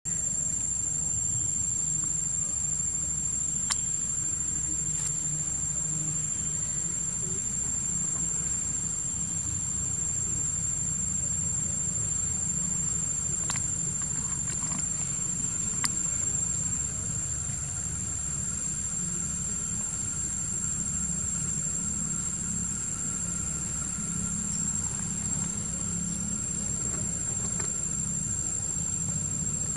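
Tropical insects droning in the trees: one high, unbroken whine over a low steady rumble, with a few faint clicks.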